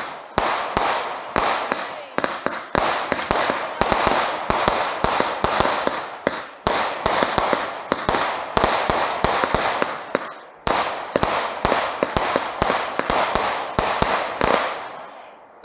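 A multi-shot firework cake fires a rapid volley of shots, about three a second, each bang trailing off in a hiss. About ten and a half seconds in it pauses briefly, then fires on until the shots die away near the end.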